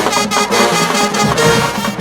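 HBCU marching band playing loudly, brass section over a driving drumline beat.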